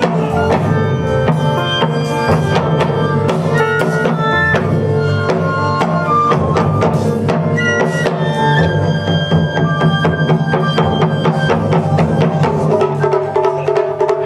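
Japanese taiko drums with a drum kit, electric bass and keyboard playing a driving funk-style groove, with sharp drum strikes over the bass line. From about the middle, the keyboard holds long high notes.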